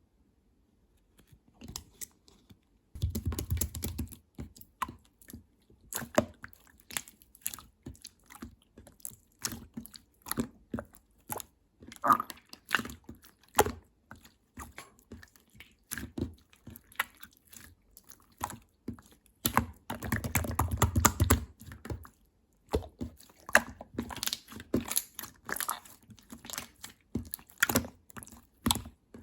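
Clear slime being squeezed and stretched by hand, giving a dense run of small clicks and pops, with two longer, louder squishing stretches about three seconds in and around twenty seconds in.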